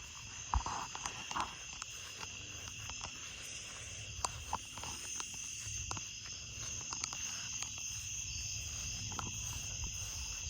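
Crickets chirping in a steady chorus, with scattered light clicks and a low rumble underneath.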